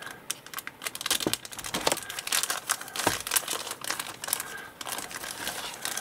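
Clear plastic bag crinkling and crackling irregularly as it is handled and pulled open.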